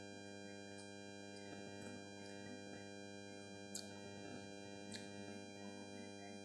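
Soft background music of sustained synthesizer or keyboard chords, with two short sharp clicks about four and five seconds in.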